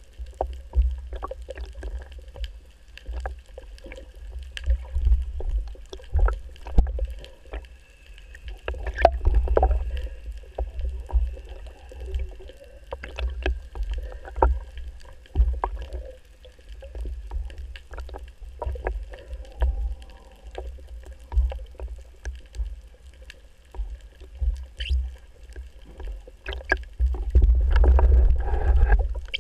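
Underwater sound through a camera housing just below the surface: a low rumble of water moving against the housing, with scattered clicks, knocks and bubbling, and two faint steady tones throughout. The water noise grows louder and busier about two seconds before the end.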